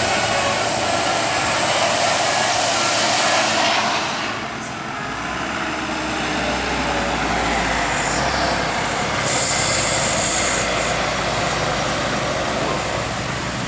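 Road traffic with large vehicles passing: a steady rush of engine and tyre noise that dips briefly about four seconds in and swells again, with a short high hiss a little past the middle.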